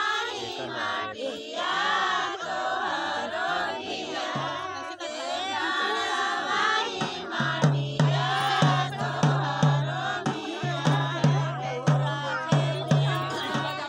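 A song sung by several voices together. About halfway through, a steady drumbeat joins in, about two beats a second.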